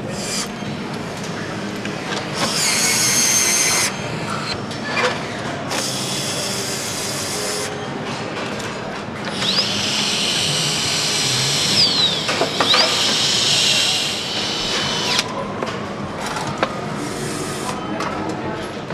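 Power tools running in short bursts on a motorcycle assembly line, driving fasteners, over a steady factory hum. The longest burst, in the middle, whines up and down in pitch as the tool spins up and stops.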